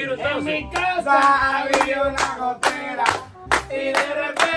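Music: a singing voice over a steady percussive beat, about two strokes a second, with a recurring low bass.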